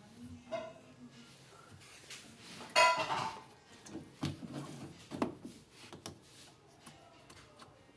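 Hard objects being handled: a series of clanks and knocks, the loudest a ringing metallic clang about three seconds in.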